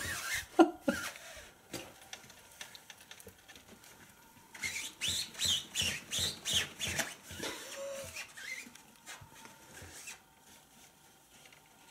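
A cat scratching and pawing at the thin nylon wall of a pop-up kids' tent: irregular rustling scratches, in a thick run of quick strokes about halfway through.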